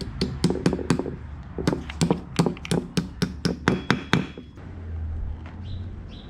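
Hammer tapping a metal spacer into a mounting hole of a new AC compressor. There are a few light taps, a short pause about a second in, then a steady run of taps at about five a second that stops about four seconds in.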